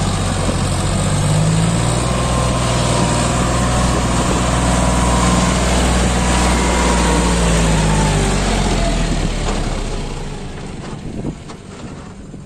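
John Deere 5036 D tractor's three-cylinder diesel engine running steadily while hauling a fully loaded trolley past at close range. The engine note fades in the last few seconds as the tractor pulls away.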